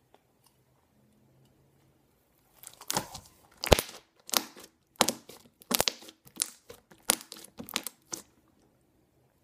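Sticky slime popping and crackling as air trapped by pressing a perforated steel utensil holder into it is squeezed out while it is pulled apart and kneaded by hand. After a quiet start, a run of about a dozen sharp wet pops and squelches begins about two and a half seconds in, the loudest about a second later.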